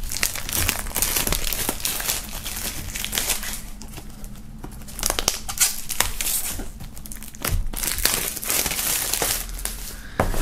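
Clear plastic shrink-wrap crinkling and crackling as it is peeled off a cardboard box by hand.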